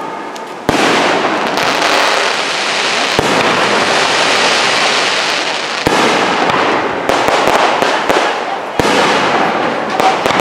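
Aerial firework shells bursting: four bangs about three seconds apart. Between them runs a dense hiss, with clusters of small crackling pops in the second half.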